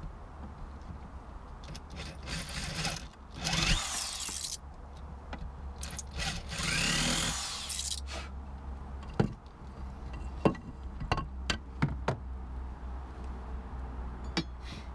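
Corded electric drill with a twist bit boring into a wooden frame in three short runs, the last and longest about two seconds. Several sharp clicks and knocks follow.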